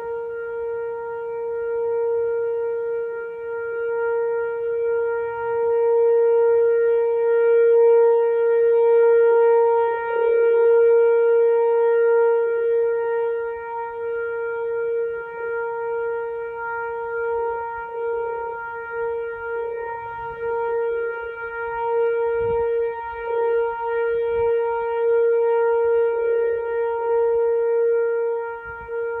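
Outdoor warning siren sounding one steady tone, its loudness slowly swelling and fading.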